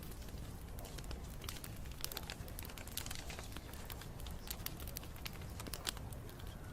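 Wood bonfire burning, with an irregular run of sharp snaps and pops from the burning wood over a steady low rumble.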